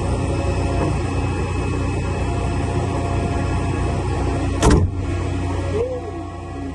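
Airport ramp engine noise during an aircraft pushback: a steady hum with several held tones. About 4.7 seconds in, one short, loud, sharp bang stands out above it, and the noise drops a little near the end.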